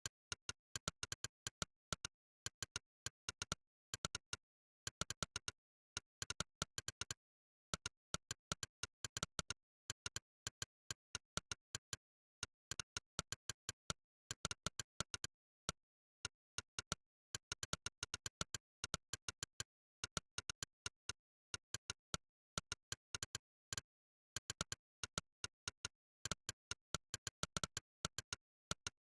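Monkeytype's synthetic "click" keypress sound, one short sharp click per keystroke, in fast irregular runs as words are typed, broken by brief pauses of dead silence.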